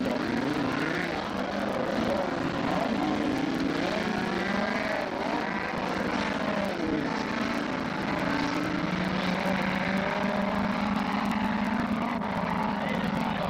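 Racing car engines revving hard, several at once, their pitch rising and falling with the throttle as the cars race past.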